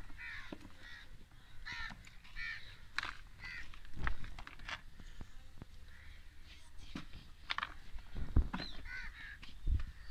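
Dry red dirt balls crushed and crumbling between the fingers in a plastic tub: scattered gritty crackles with a couple of heavier thuds as lumps break or drop. A bird calls repeatedly in the background.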